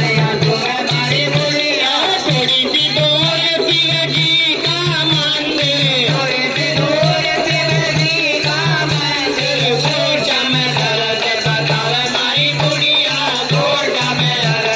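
Live, amplified Indian devotional folk music: a voice singing over a steady low drumbeat and jingling hand percussion.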